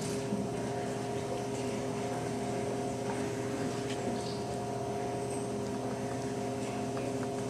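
Steady room hum with several fixed pitches, under a few faint knocks.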